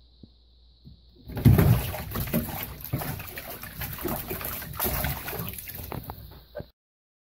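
A cat falling into a full bathtub about a second in and splashing and thrashing about in the water. The splashing stops abruptly near the end.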